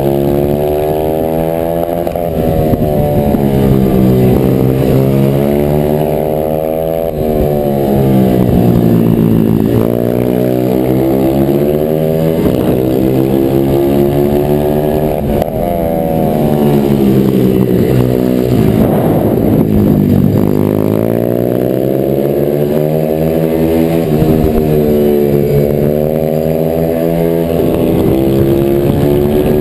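Onboard sound of a racing pitbike's single-cylinder engine at hard throttle, its revs climbing in repeated rising sweeps and dropping sharply between them as the rider shifts gear and brakes for corners. The deepest drop comes a little past halfway, before the engine pulls up again.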